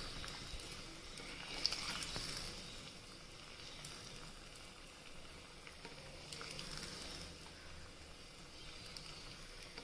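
Coconut oil sizzling around a bread-dough gulab jamun ball deep-frying in a small steel pan: a faint, steady frying hiss with a few light ticks.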